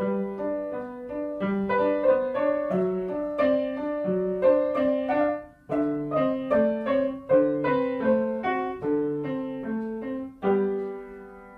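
Acoustic upright piano played by a child: a simple melody over a lower accompaniment, one note after another at an even pace. Near the end the piece closes on a struck chord that rings and fades away.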